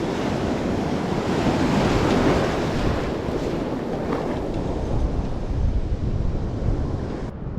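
Ocean surf washing onto the beach, with wind buffeting the microphone in a low rumble.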